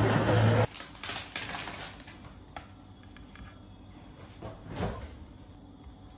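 Music over restaurant chatter cuts off in the first second. Then come scattered light clicks and taps of a metal fork against a frying pan and a bowl as meat is laid onto a tortilla, with one louder clatter later on.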